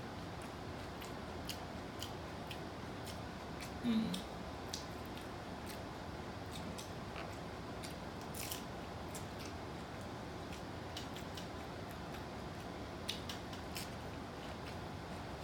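A person chewing crunchy tacos close to the microphone: scattered small, crisp crackles and mouth clicks over a steady background hiss. A brief low voice sound comes about four seconds in.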